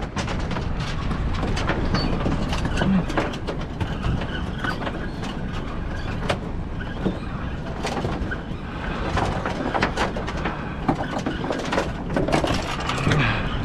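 Steady wind and water noise on a small open fishing boat, with scattered sharp clicks and knocks.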